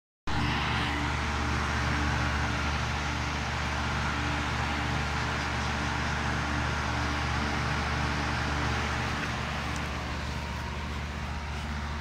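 Old Lennox central air-conditioner condenser unit running in cooling mode: a steady low hum under the even rush of its four-blade top fan.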